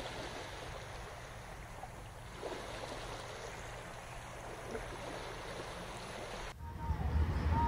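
Steady rushing of running water, an even hiss with no engine tone. About six and a half seconds in it cuts off suddenly and gives way to a louder low rumble with a faint wavering high tone.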